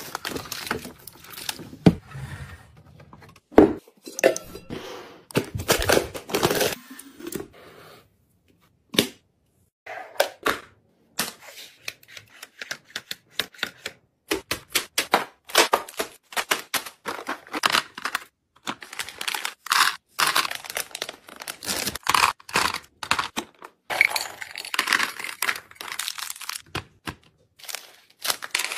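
Crinkling and tearing of snack packaging, mixed with clicks and knocks of clear plastic storage bins and a divided plastic organizer tray being handled and set down. A short silent gap comes about eight seconds in.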